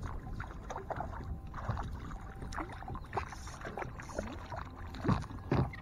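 A small hooked bass splashing at the surface as it is reeled in toward a kayak, with water lapping at the hull, and two louder thumps near the end.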